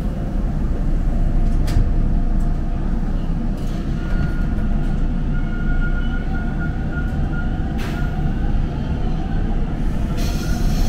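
Toronto subway train running out of a station into the tunnel, heard from inside the car: a steady low rumble of wheels and motors. A faint steady whine comes in about four seconds in, and there are two sharp clicks.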